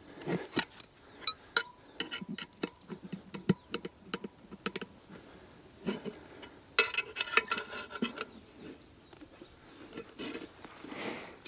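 Steel tire levers clicking, scraping and clinking against a motorcycle wheel rim while the tire bead is pried off the rim. A denser run of ringing metal clinks comes about seven seconds in.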